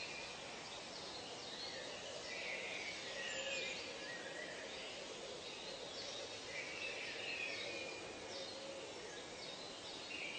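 Tropical nature ambience: birds calling in short chirpy phrases every few seconds over a steady background hiss.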